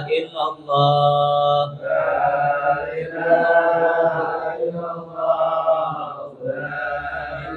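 Group of men chanting Islamic dhikr in unison, led by one voice through a microphone, in long drawn-out phrases with short breaks between them.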